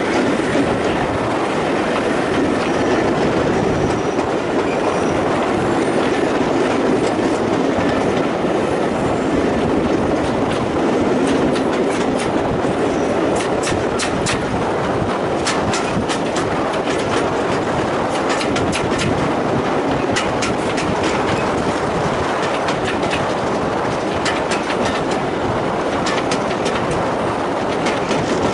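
Train coach running along the track, heard from on board: a steady rumble of wheels on rail, with clicks over the rail joints coming thickly from about ten seconds in and thinning out near the end.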